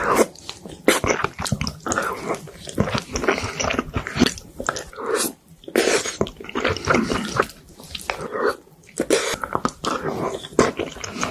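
Close-miked eating sounds: a person chewing and biting food with irregular wet smacks and crunchy clicks, no speech.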